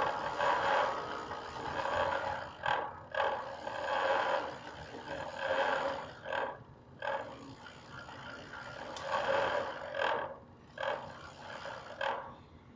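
Loud, drawn-out roars in a series of about four outbursts, each one to three seconds long with brief breaks between them.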